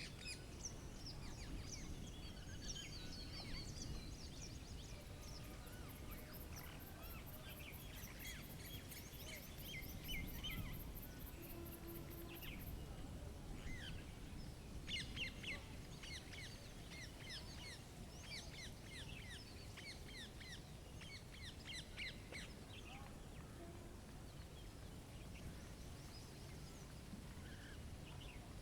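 Several small birds chirping and calling over a low outdoor rumble. From about 6 to 12 seconds in there is also a very high, rapid ticking at about four a second.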